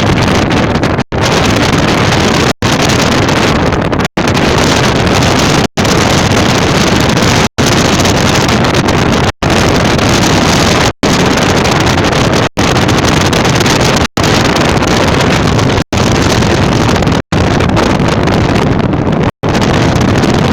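Loud, steady wind noise rushing over the microphone, broken by brief dropouts about every second and a half.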